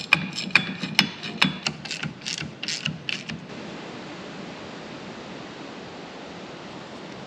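A ratchet spanner clicking in quick irregular strokes as bolts on a metal mounting plate are tightened, some clicks ringing; it stops about three and a half seconds in.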